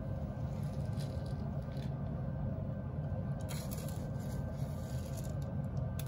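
Ariel Unstoppables scent beads being poured, a faint rattling patter that is clearest for a moment about three and a half seconds in, over a steady low hum.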